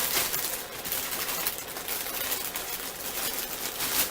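Packaging being handled: a continuous crackly rustle, with small handling knocks, as a new sewing machine is unwrapped from its box.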